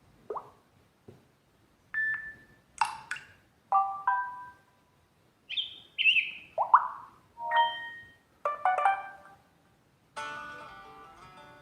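A run of short electronic notification tones from a Samsung Galaxy Note 4 phone, played one after another: blips, little chimes and chirping pitch glides, each under a second, with short gaps. About ten seconds in, a longer, fuller melodic tone begins.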